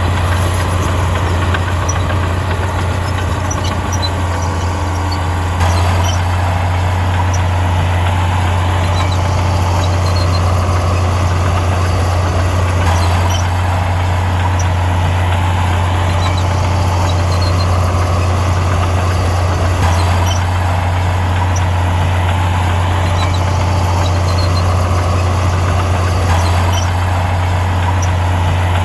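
Heavy earthmoving machine's diesel engine running steadily under work, a deep constant drone. It steps up slightly about five and a half seconds in.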